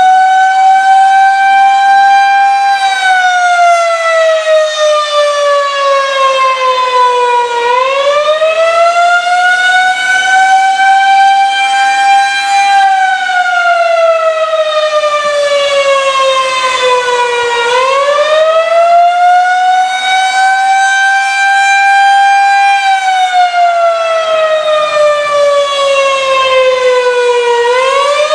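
Federal Signal 2001-130 rotating electromechanical outdoor warning siren sounding the Attack signal. Its pitch rises over about three seconds, holds briefly, then falls over about five, repeating about every ten seconds.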